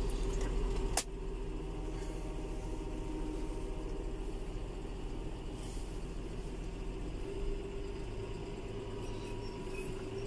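John Deere tractor's diesel engine running steadily, heard from inside the cab. There is a single sharp click about a second in, after which the engine sounds quieter, and the engine note shifts slightly about seven seconds in.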